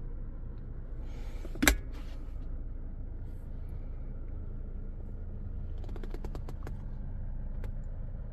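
Steady low hum inside a car cabin, with one sharp click about two seconds in and a quick run of light ticks around six seconds in.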